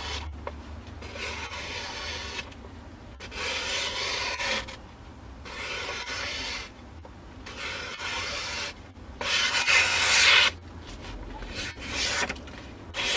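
Professionally sharpened ENZO Trapper 95 knife, 12C27 steel blade, slicing through a sheet of paper in about six long strokes of a second or so each, with short pauses between. This is a paper-slicing test of the blade's sharpness.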